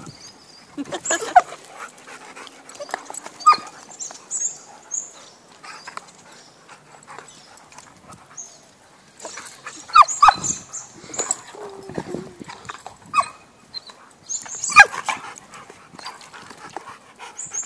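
Two dogs play-fighting, a chocolate Labrador and a white long-haired dog, snarling in short scattered bursts. The loudest bursts come about ten and fifteen seconds in.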